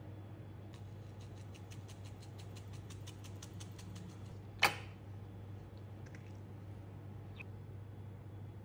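A rapid, even run of light clicks, about six a second for some three seconds, then a single loud sharp click about half a second later, over a low steady hum.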